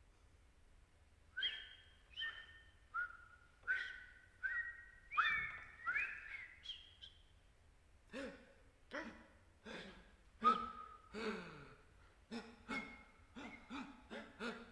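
Contemporary chamber piece for six seated performers: a series of short, sharp pitched pops and whistle-like sounds made by the performers. After about a second and a half of quiet come higher tones that glide slightly. From about eight seconds in, the pops come quicker and lower, with falling pitch.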